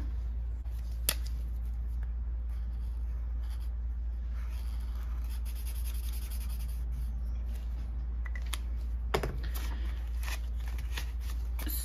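A marker scratching across a paper card as a number is coloured in, with a couple of sharp clicks, over a steady low hum.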